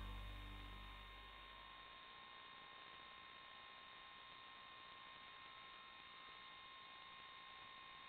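Background music fading out in the first second or so, then near silence with a faint, steady electronic hum.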